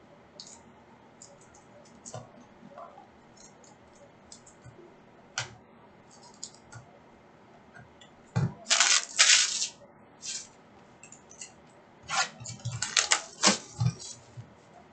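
Trading-card pack wrappers crinkling and being torn open, with light clicks of cards being handled and flicked through. There are two louder stretches of crinkling, about eight seconds in and again about twelve seconds in.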